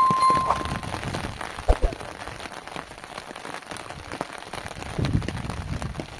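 Steady rain falling on muddy ground and puddles, with many small drop hits ticking through it. A brief high tone sounds right at the start.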